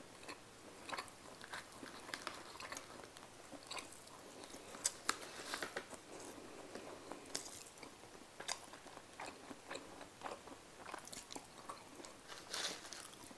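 Faint close-miked chewing and mouth sounds while eating, with scattered small clicks and taps from a plastic spoon and fork on plastic food containers.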